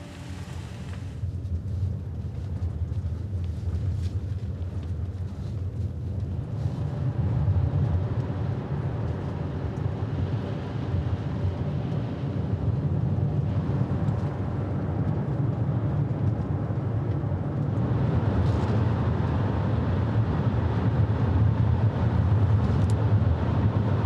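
Road and engine noise of a moving car heard from inside the cabin, a steady low rumble that gradually grows louder.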